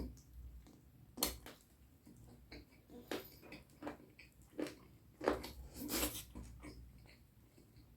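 Close-miked eating sounds of someone chewing curry and rice: irregular wet mouth smacks and clicks, several a second at times, with brief pauses between.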